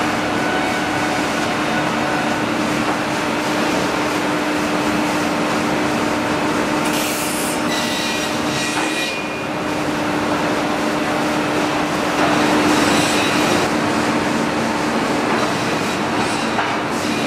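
Sawmill lumber-handling machinery, a drop saw trimmer with chain conveyors, running: a continuous mechanical rattle and clatter over a steady hum, with a few brief louder hissing rushes near the middle.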